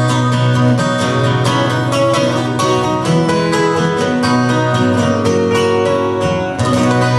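Live band with strummed acoustic guitars and a steady bass playing the song's instrumental ending. The strumming stops on a final chord near the end, which rings on.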